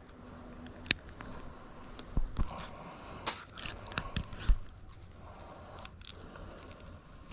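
Scattered clicks, scrapes and crinkles as a small catfish is handled on a bag while a deep-set hook is worked out of its mouth, with a few sharper knocks about two seconds in and again near the middle.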